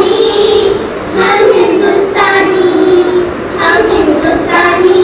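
A child singing a melody in long held notes, with short breaks between phrases.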